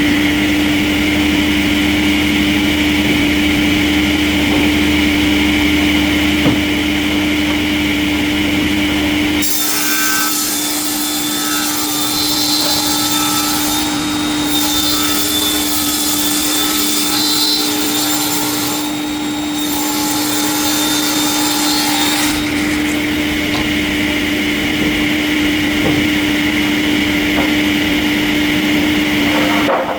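Industrial sawmill saw cutting through logs over a steady machine hum. From about a third of the way in to about three-quarters the low rumble drops out and a brighter, hissing cutting sound takes over, then the heavier running sound comes back.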